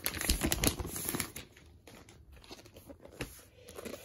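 Rustling and scraping of a vinyl record album's cardboard jacket being handled and turned over, busiest in the first second and a half, then quieter.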